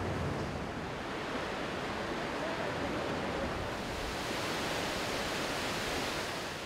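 Ocean surf breaking and washing onto the beach, a steady rushing noise.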